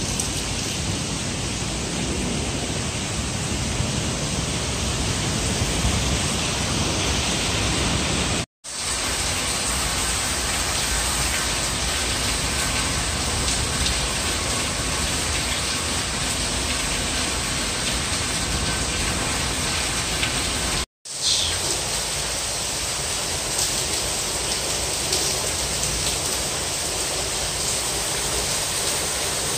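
Heavy rain pouring steadily, a dense even hiss that cuts out for an instant twice.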